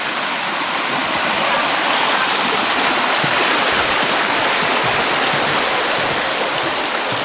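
Shallow mountain stream rushing over rocks: a loud, steady watery rush.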